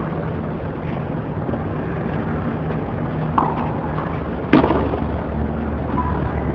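Two sharp pops of a tennis racket striking the ball, a little over a second apart, the second louder, over a steady low background hum.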